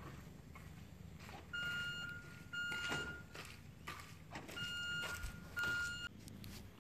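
Electronic beeper sounding four beeps of one steady pitch, each about half a second long, in two pairs. A few faint taps fall between them.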